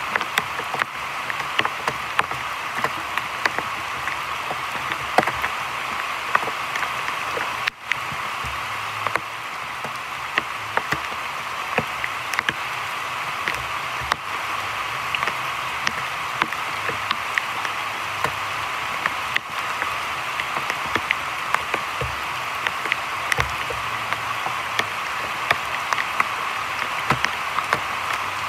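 Heavy rain falling steadily on a creek's surface: a dense, even hiss with many sharp individual drop splats.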